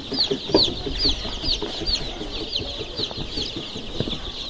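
A brood of young layer chicks peeping: a rapid, overlapping run of short high peeps, each falling in pitch, several a second.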